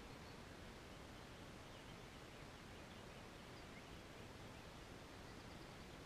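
Near silence: a faint, even outdoor background hiss, with a few very faint high chirps.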